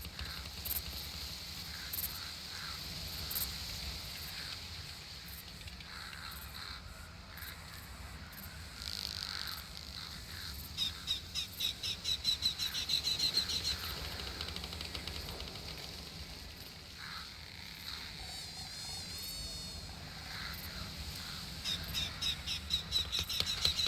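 Summer outdoor ambience: a steady high insect buzz, with two bouts of a fast, slightly rising trill, one about halfway through and one near the end, and a brief warbling bird call between them.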